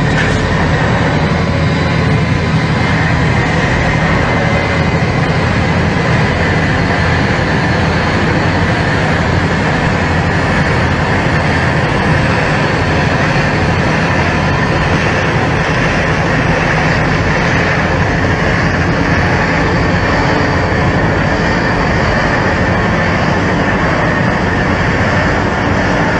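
Diesel locomotive engine running loud and steady as it burns, flames and smoke pouring from its exhaust stack, with a thin steady whine over the engine noise.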